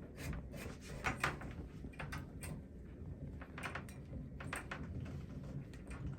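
Scattered light clicks and knocks of a shower head and its fittings being handled, over a low steady hum.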